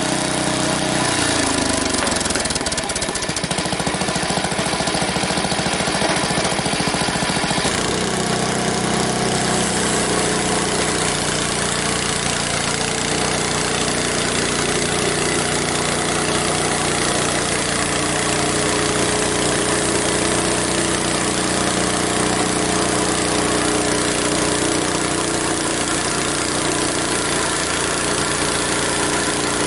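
Engine of a Frontier OS23 portable bandsaw sawmill running continuously while planks are sawn. Its pitch drops about a second in and shifts again around eight seconds, then holds steady.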